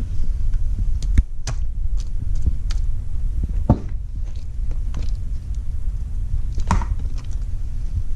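Hands kneading and squeezing sticky homemade glitter slime: scattered small clicks and pops from the slime, a few louder ones, over a steady low rumble of handling noise.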